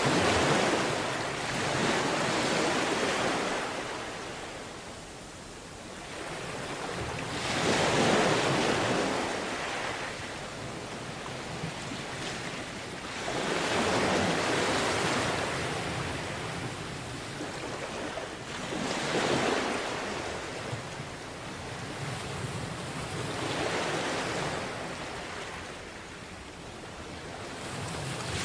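Sea waves washing onto a beach. The surf swells and falls away in surges about every five to six seconds.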